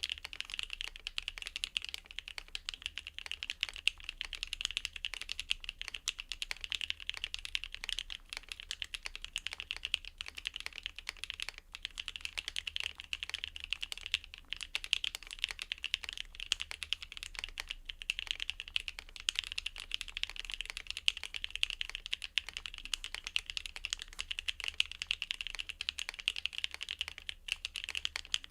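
Steady, fast typing on a custom ergonomic mechanical keyboard with JERRZI ROUGE linear switches: a dense run of key clacks with a few brief pauses.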